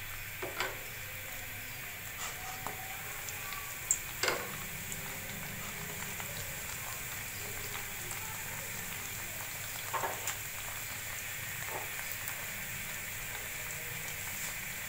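Bread slices sizzling steadily as they shallow-fry in hot oil in a frying pan, with a few short knocks along the way.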